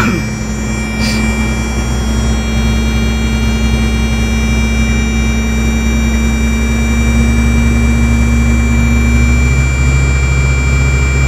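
A 6x6 military truck's engine running steadily under the camera, with a low drone that drops a step in pitch about nine and a half seconds in.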